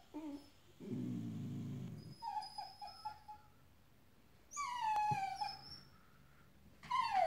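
Dogs whining and crying at a squirrel outside the window. The high whines slide down in pitch, and a low grumbling sound runs for about a second starting about a second in.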